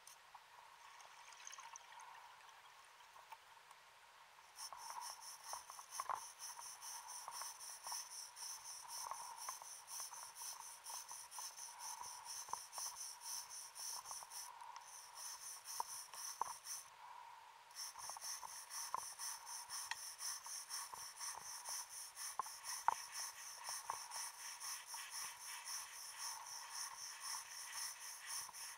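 Wire brush scraping concretion off a wrecked submarine's propeller underwater: a rapid, continuous rasping scratch that starts about four seconds in, with occasional sharp knocks of the brush on the metal and two short pauses in the middle.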